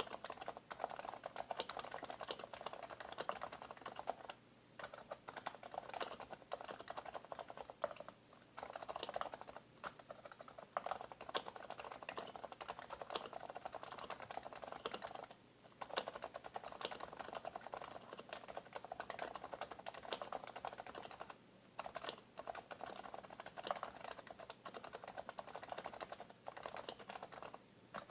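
Fast continuous typing on an HHKB Professional BT Type-S keyboard, its silenced Topre capacitive keys clicking softly in rapid runs, with a few short pauses.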